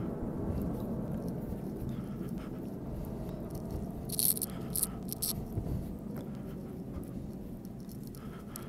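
Palms rolling a coil of air-dry clay back and forth on a wooden board, a soft steady rubbing. There are a few short hissy sounds about halfway through.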